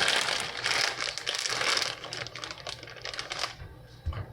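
Plastic pasta package crinkling and crackling as it is handled, dense for about two seconds, then thinning to scattered lighter crackles.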